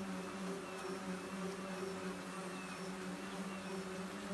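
Electric motors and 12-inch propellers of a homebuilt electric rotor-wing craft buzzing steadily in flight, with a faint higher whine that wavers up and down in a slow, regular cycle as the wings turn.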